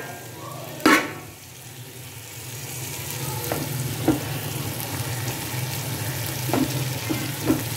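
Pot of masala with potatoes and peas sizzling on a gas burner after a little water has gone in, the sizzle swelling after the first couple of seconds. One loud metal clatter about a second in, and a few light clinks later, like a metal spoon against the pot.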